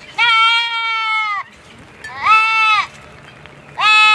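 Goat bleating three times, the first call long and drawn out, over a second, the next two shorter.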